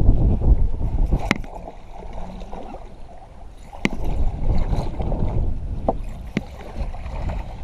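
Wind rumbling on the microphone over open water, broken by four sharp clicks.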